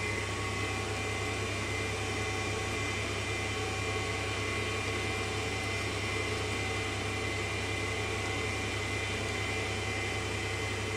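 D-bit grinder's motor and grinding wheel running steadily with no part against the wheel: a low hum with a thin, steady high whine.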